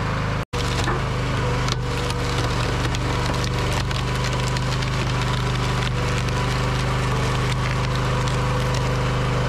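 Log splitter's engine running steadily while wood cracks and splinters as it is forced through the four-way wedge. The sound cuts out for an instant about half a second in.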